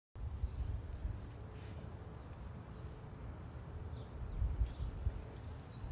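Insects trilling in one steady, high-pitched note, over a low rumble.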